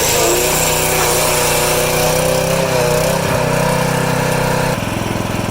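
A small engine running steadily with a wavering whine over it. Near the end the sound changes abruptly to a rougher, lower-pitched running.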